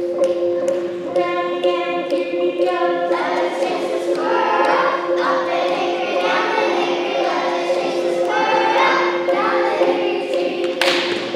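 A group of children singing together over a steady drone of two held notes. There is a short burst of noise near the end.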